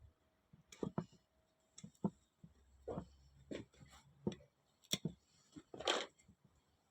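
Faint, scattered light clicks and knocks with soft rustling, from hands handling and wiping engine parts clean.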